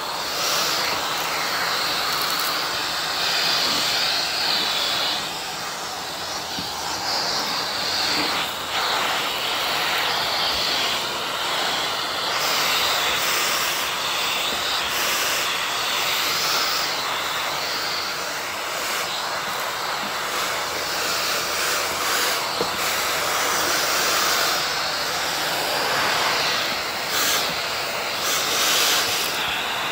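Vacuum cleaner running steadily, its rushing motor noise swelling and easing a little as it moves.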